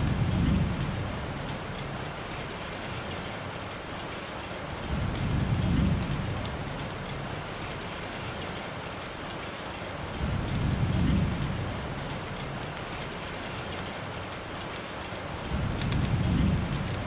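Steady rainfall, with a low rumble that swells up and fades four times, about every five seconds.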